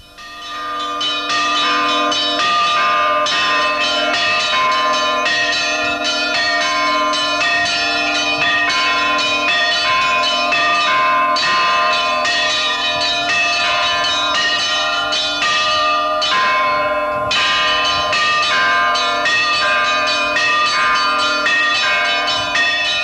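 Russian Orthodox church bells rung by hand from ropes. Several bells of different pitches are struck in a fast, continuous peal, with a lower bell sounding beneath the smaller ones.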